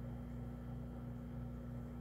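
Steady low machine hum with a constant low tone and a faint regular pulsing, about three times a second.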